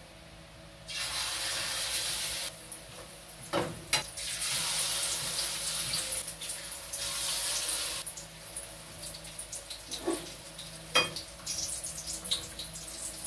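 Dulong omelette frying in hot oil in a wok: loud sizzling in two long bursts, settling into lighter crackling. A few sharp clinks of utensils sound about four seconds in and again near ten to eleven seconds in.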